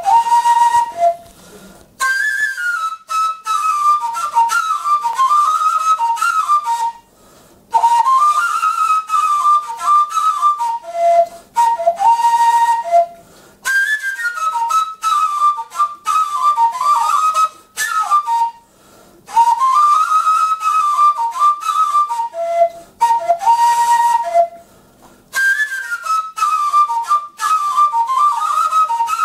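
Floyara, the Ukrainian end-blown wooden shepherd's flute, playing a solo folk tune with an airy, breathy tone. The tune comes in repeated phrases about six seconds long, with short pauses for breath between them.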